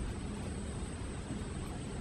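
Steady rush of wind buffeting the microphone, with an uneven low rumble.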